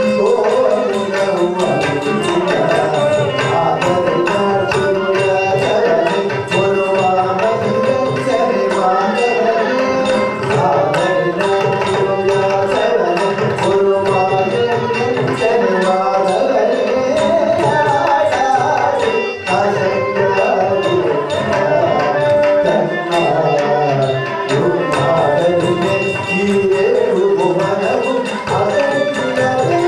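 Carnatic classical music with a melody in raga Madhyamavati over a steady drone. Fast, rhythmic hand-drum strokes keep Adi tala.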